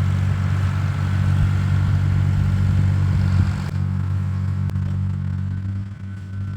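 Fiat tractor engine running steadily while pulling a grading blade over a dirt road; its higher, rougher noise drops away a little past halfway while the low engine hum carries on.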